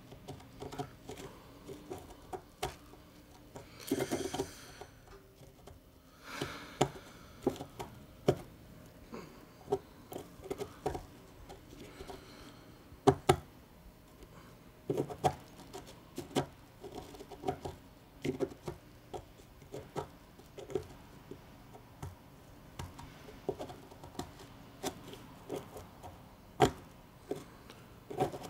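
Scattered small clicks and taps at irregular spacing, with two short rustles of paper about four and six and a half seconds in.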